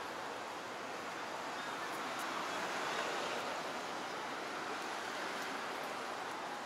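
Steady city street ambience: an even hiss of traffic on the avenue, with no single vehicle standing out.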